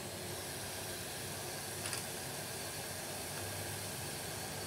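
Onions frying in oil in a pot with a steady sizzling hiss, and one short click about two seconds in.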